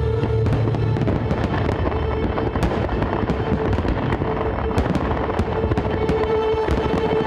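Display fireworks going off in an irregular string of sharp bangs and crackles over the show's music soundtrack.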